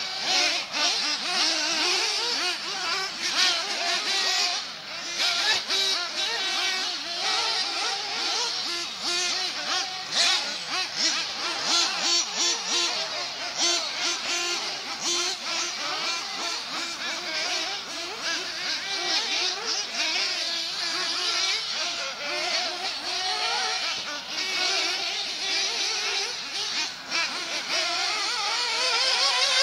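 Several small two-stroke nitro engines of 1/8-scale off-road RC buggies (Losi and Kyosho Inferno MP9) buzzing at high pitch. They rev up and drop back over and over as the cars lap the track, their pitches overlapping and rising and falling constantly.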